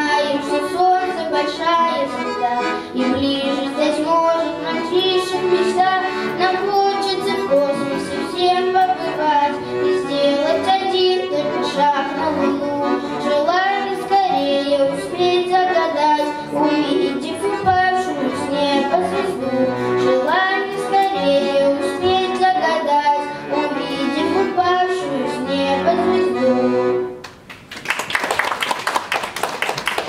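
Bayan (Russian button accordion) playing a lively song accompaniment with chords and melody. The music stops about 27 seconds in and audience applause follows.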